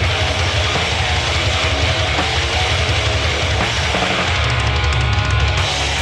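Live grindcore-punk band playing loud and fast, the drum kit and bass drum to the fore under a dense wall of distorted guitar.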